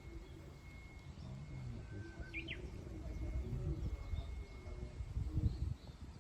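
Wild birds calling, with one short sharp call of two quick notes about two seconds in. Under it runs a low rumble that swells near the end.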